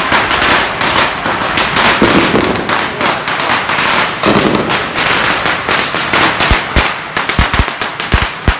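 Strings of firecrackers crackling rapidly and continuously, with a few heavier separate bangs near the end.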